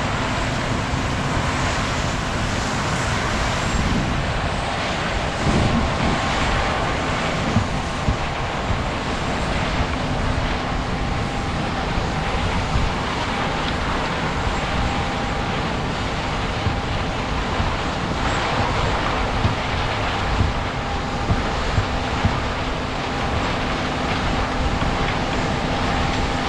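Large diesel farm machinery running steadily: a constant engine and machine drone with a faint steady hum through it.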